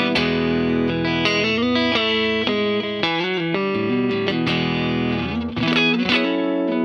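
Fender Stratocaster electric guitar played through a Boss CS-3 Compression Sustainer pedal into a Vox AC30 amp. Clean, compressed notes and chords ring out long and even, with a few quicker picked notes near the end.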